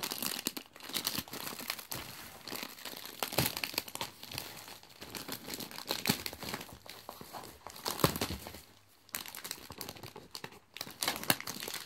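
Plastic packaging film and bags crinkling and rustling in the hands as items are unwrapped and handled, with irregular crackles throughout and one sharper crackle about eight seconds in.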